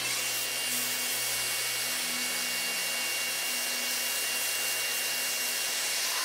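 Cordless drill spinning a plastic roller-skate wheel on a bolt against hand-held P120 sandpaper: a steady sanding hiss with the drill motor's whine underneath.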